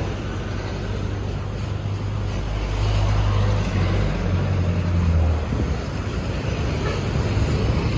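Street traffic: motor vehicles passing with a steady low engine rumble, which swells from about three seconds in and eases again a couple of seconds later.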